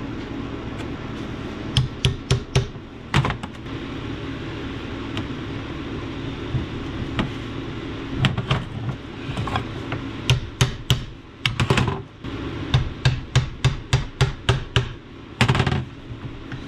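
Hammer striking metal, tapping at the steering-shaft coupler clamped in a bench vise to open its bore a hair so it seats on the orbital valve's input shaft. A quick group of sharp blows comes about two seconds in, then long runs of steady taps, about three a second, through the second half.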